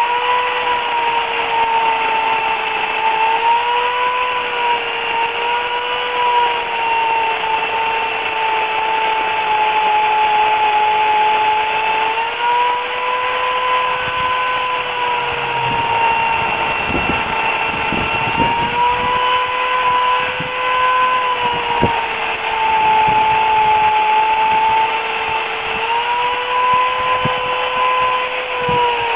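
Remington Limb N Trim RM1415A electric chainsaw, with an 8-amp motor, running continuously at a steady high whine while cutting wood. Its pitch sags slightly and recovers now and then as the load changes. A few sharp knocks come about halfway through.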